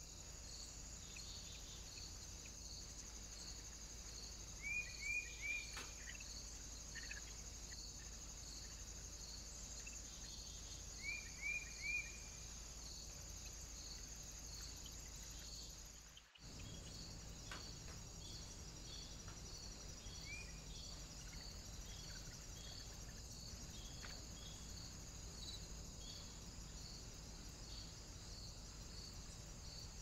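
Crickets chirping steadily, about two chirps a second, over a faint outdoor background. A bird twice gives a short call of three quick rising-and-falling notes, about five and eleven seconds in. The sound drops out briefly about sixteen seconds in.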